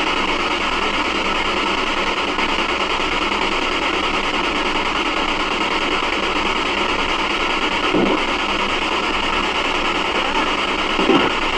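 Continuous loud static hiss with a choppy, radio-like texture. A short faint voice-like sound comes about eight seconds in and another near the end, heard by the investigators as a voice saying "yeah".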